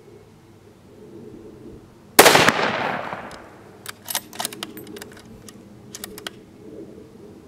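A single rifle shot from a .308 Winchester Savage 10 bolt-action rifle about two seconds in, its report fading over about a second. It is followed by a run of short metallic clicks as the bolt is worked to cycle the rifle.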